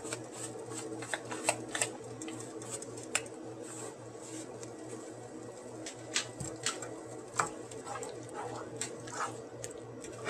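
Chickpea masala gravy simmering in a frying pan: scattered small pops and crackles over a steady low hum.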